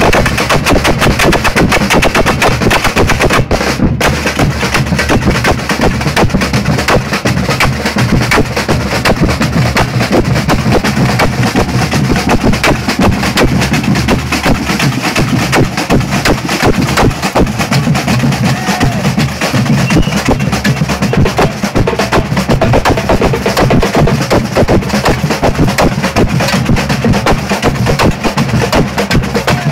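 Samba percussion band playing together: bass drums, snare drums and small hand-held drums in a dense, fast, unbroken rhythm.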